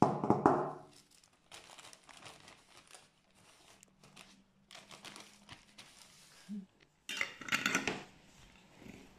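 Dried grated coconut poured from a crinkling bag into a glass jar, with the jar handled on the table at the start. Near the end a metal screw lid is put on and twisted onto the jar.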